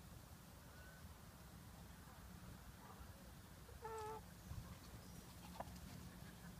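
A single short, pitched chicken call, about half a second long, about four seconds in, over faint outdoor background. A faint chirp comes earlier, and a brief tap comes near the end.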